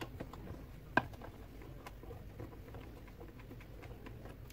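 Light clicks and taps of plastic parts and a hose being handled and fitted inside an opened espresso machine, with one sharper click about a second in.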